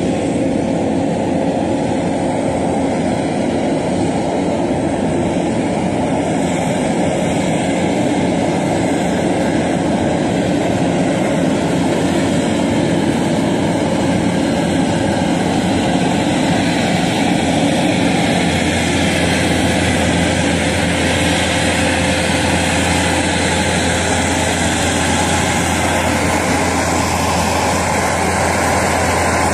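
Skid-steer loader's engine running steadily under a dense mechanical drone, its low hum growing stronger a little past halfway.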